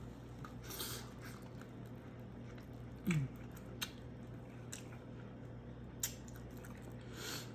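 Close-up mouth sounds of a person chewing soft food, imitation crab with onion, with wet smacking and a few sharp clicks.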